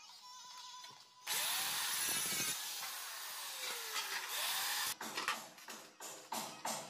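Handheld electric tile cutter (marble cutter) cutting a ceramic wall tile. It starts about a second in, runs loud and harsh for almost four seconds, then stops.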